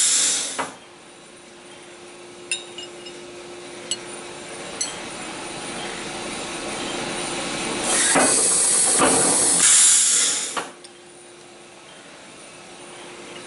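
Press brake working on a steel strip: a loud hiss stops just under a second in and a second hiss runs for two to three seconds from about eight seconds in. In between there is a steady low hum with a few light metal clinks.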